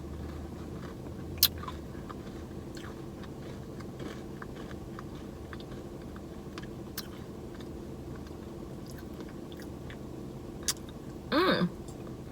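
A person chewing and biting mouthfuls of a soft-serve Blizzard with chocolate chip chunks, over a steady low background hum, with a few sharp clicks and a short hummed voice sound near the end.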